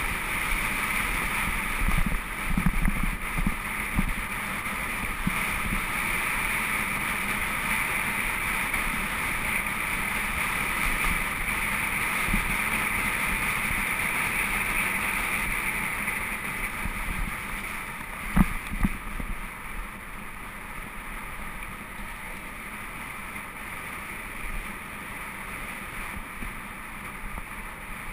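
Mountain bike rolling fast down a gravel track: steady wind rush on the microphone and tyre rumble, with a few knocks over bumps and one sharp knock past the middle. The noise eases somewhat in the last third.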